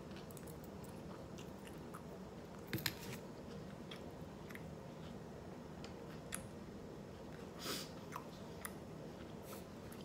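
A person chewing a mouthful of hamburger, with faint wet mouth sounds and small clicks. There are two sharper bites or crunches about three seconds in, and a short burst of noise near eight seconds.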